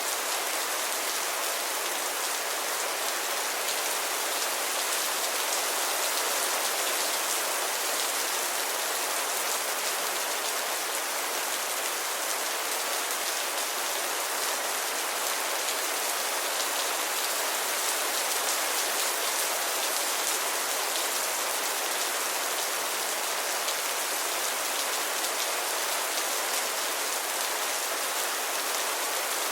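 Steady rain falling on a surface, an even hiss with fine patter of drops.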